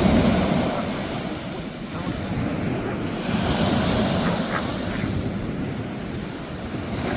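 Small sea waves washing onto the beach, swelling loudest at the start and again about halfway, with wind rumbling on the microphone.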